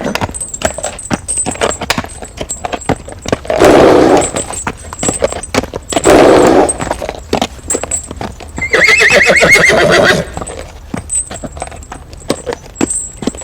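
Hooves of a ridden horse clip-clopping steadily throughout. The horse calls out loudly three times, about four, six and nine seconds in; the last is the longest, a wavering whinny.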